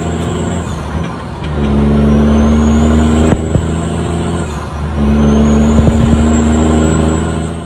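Heavy diesel truck engine heard from inside the cab, pulling through the gears. The engine note drops twice, about a second in and past the middle, then comes back loud under load, each time with a high whine rising in pitch. A few sharp clicks are mixed in.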